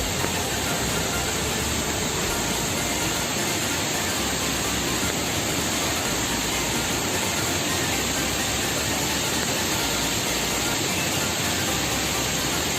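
Steady rush of water pouring down a waterfall, an even noise without pauses or changes.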